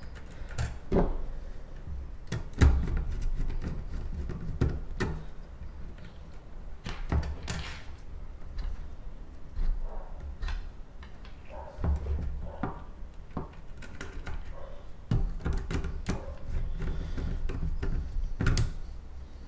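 Small screwdriver tightening wires into the screw terminals of a switch-mode power supply: irregular clicks, scrapes and handling knocks as the mains wires are fastened.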